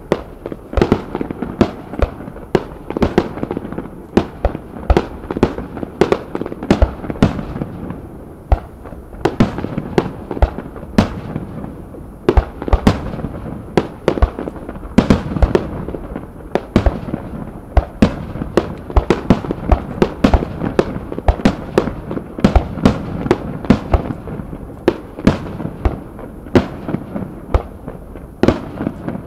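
Fireworks display: aerial shells bursting in a dense barrage, several sharp bangs a second over a continuous low rumble of booms.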